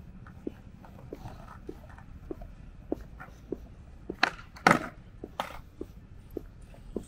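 Footsteps at a steady walking pace, about three steps every two seconds, over a low street hum. Two louder, sharp sounds come close together a little past the middle.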